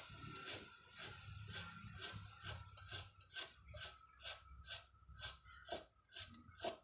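A carrot being sliced into thin rounds on a boti, the fixed curved blade of a Bengali floor cutter: short cutting strokes in a steady rhythm, about two a second.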